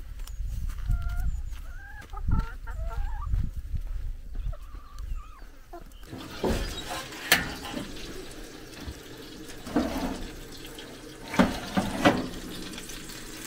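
Chickens clucking softly over a low rumble. About six seconds in the sound changes to a hiss with a few sharp knocks or clatters.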